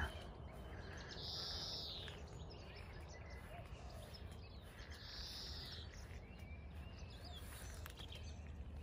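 Faint outdoor birdsong: a hissing, high call heard twice about four seconds apart, with soft chirps between.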